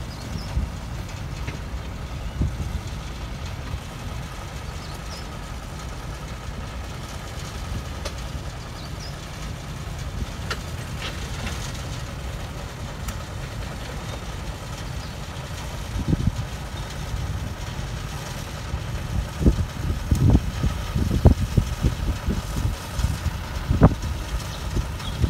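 Small diesel locomotive of a sugar cane railway running slowly with a rake of cane bins, a steady low engine rumble. Several low thumps and knocks come in over the last several seconds.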